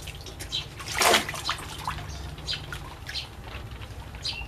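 Small splashes and trickles of water as a child's hands scoop and slosh water in a plastic bucket in a shallow paddling pool, with a louder splash about a second in.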